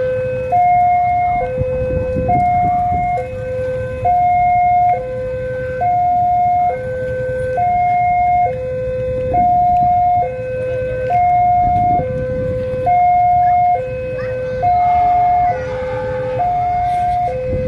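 Railway level-crossing warning siren sounding a steady two-tone hi-lo wail, switching between its two pitches just under once a second, with road traffic rumbling underneath.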